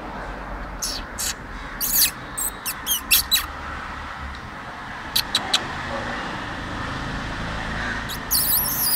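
Kittens squeaking: a run of short, high squeaks, a few more a little later, then a cluster of falling squeaks near the end.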